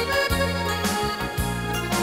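Swedish dansband music in an instrumental stretch without singing: a steady beat of about two a second, with a bass line and keyboards.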